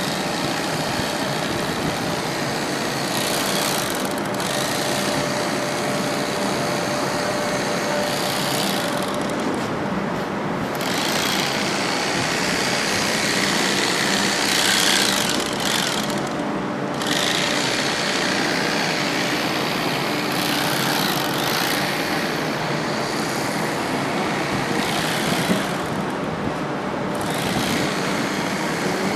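Steady machine noise with repeated spells of higher-pitched whirring, each lasting a second or two and coming every few seconds: a portable electric bag-closing machine stitching sacks shut.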